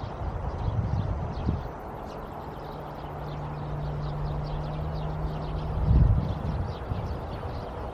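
Low rumbling microphone noise, stronger in the first second and a half and again about six seconds in, over a steady low hum.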